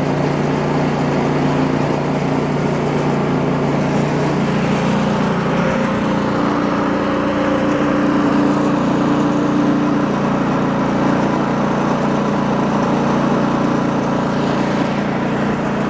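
Gasoline engine running steadily at a constant speed, with an extra steady tone that holds for a few seconds midway.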